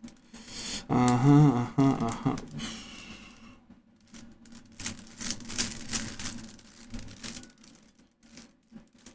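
Rubik's cube being twisted by hand: irregular clicking and rattling of the plastic layers turning, thickest in the second half. About a second in there is a short pitched vocal sound, the loudest thing present.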